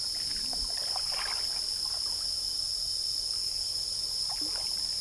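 Steady high-pitched drone of forest insects, over a low rush of river water, with a few faint short sounds scattered through.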